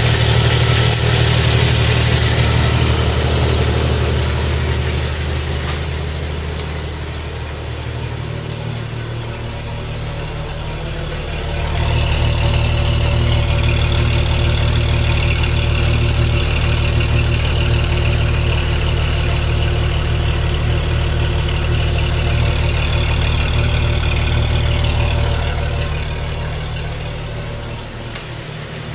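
1998 Jeep Cherokee XJ's 4.0-litre inline-six idling steadily, heard along the exhaust, louder and fuller from about twelve seconds in at the tailpipe. The owner suspects an exhaust manifold leak, saying the engine has been getting louder and sounds a bit tappety.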